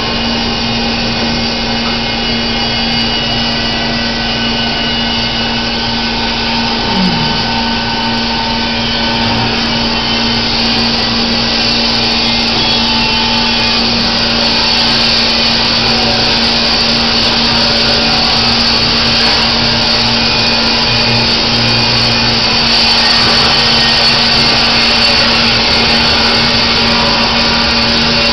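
Baker Products Super Streak band sawmill running steadily with a constant motor hum, its band blade sawing through a white oak log.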